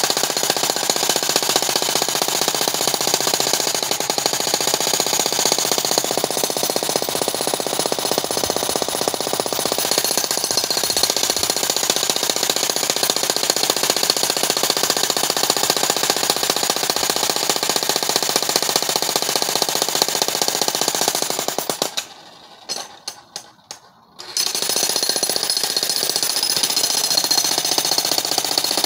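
Corded electric demolition breaker hammer (jackhammer) pounding into rock with a fast, continuous hammering. It stops for about two seconds near the end, leaving a few faint knocks, then starts again.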